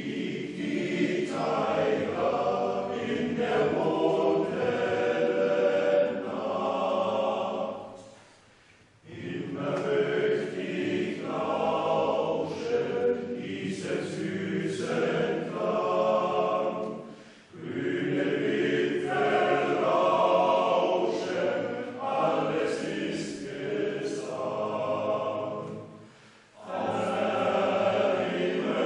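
Men's choir singing without accompaniment, in long phrases broken three times by brief pauses where the sound drops away.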